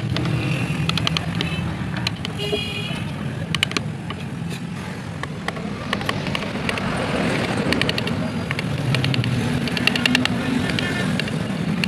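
Road traffic running steadily, with a brief high horn toot about two and a half seconds in. Scattered sharp clicks come through as a hand carving gouge cuts into the wooden panel.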